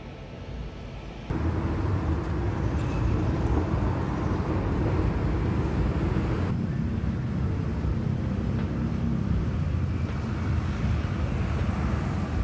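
Outdoor city street ambience: a steady low rumble of road traffic, jumping louder about a second in.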